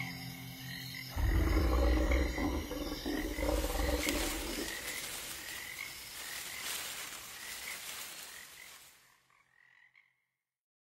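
Swamp ambience at the tail of a dungeon synth track: frogs croaking in a repeating pattern over a deep low rumble that swells in about a second in. Everything fades out to silence about nine seconds in.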